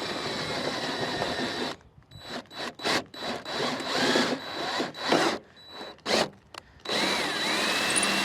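Power drill running with a drill bit being tried in the side mirror's mounting hole. It runs steadily for a couple of seconds, then in a string of short trigger bursts, then steadily again near the end with a whine that bends up and down in pitch.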